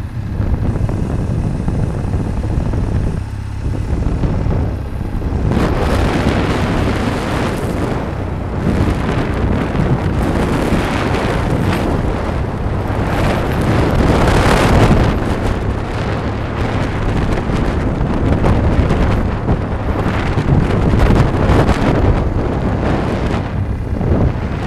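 Wind buffeting a phone microphone: a loud, gusty rumble that swells and eases, strongest around the middle.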